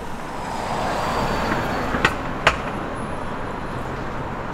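City street traffic noise, swelling as a vehicle passes a second or so in. Two sharp clicks about half a second apart near the middle are the loudest sounds.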